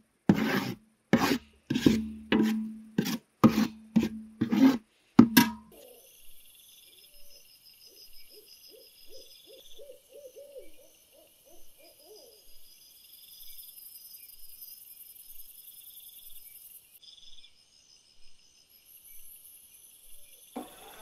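A metal ladle scraping around a large metal pot of thick tomato paste, about nine strokes at roughly one every half second. Then night insects chirp in steady high trills, with a faint quick run of low calls for a few seconds in the middle.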